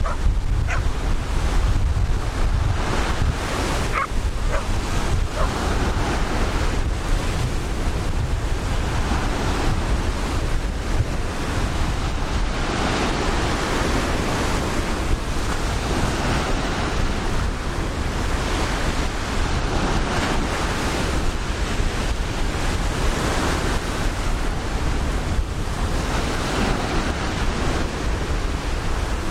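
Ocean surf washing in and out in slow swells, with wind buffeting the microphone as a steady low rumble.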